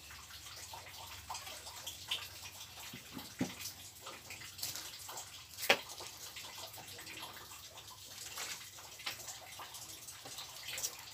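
Steady hiss of light drizzle, with scattered small clicks. Around the middle comes a single sharp crackle of a plastic water bottle being handled for a drink.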